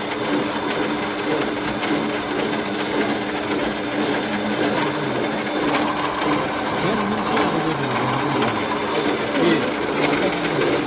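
Metal-working lathe running, its motor and drive giving a steady hum with one constant tone.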